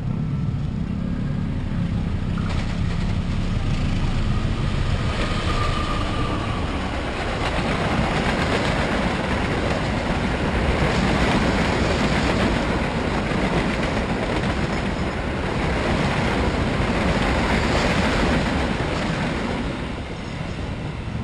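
Passenger train coaches passing close by, their wheels running over the rails in a loud, steady rush of noise that swells and eases a little as the cars go past.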